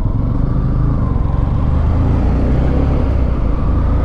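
Yamaha motorcycle engine running steadily as the bike rides along a highway, with wind and road noise rushing past.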